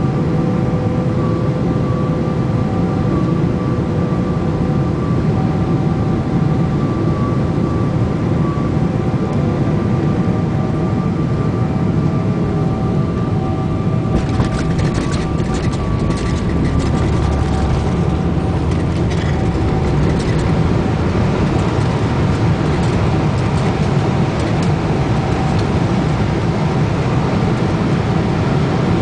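Steady airliner cabin noise: the rush of jet engines and airflow, with faint steady whining tones above it. A short run of clicks and rattles comes about halfway through.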